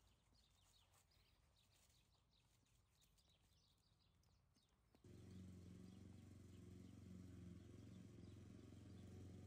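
Faint bird chirps, then about halfway through a lawn mower running with a steady low hum cuts in abruptly and carries on.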